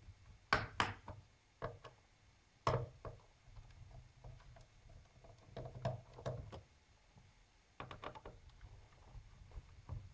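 Scattered sharp clicks and knocks of a screwdriver working screws out of a laptop's plastic bottom cover, loudest in a pair about half a second in and once near the start of the third second.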